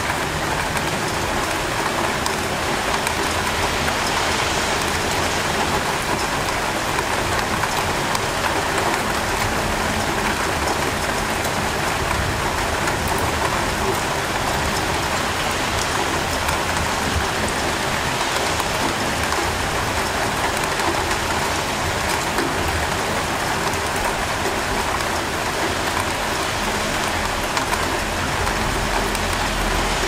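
Steady rain falling in an even hiss, with a low rumble of traffic underneath.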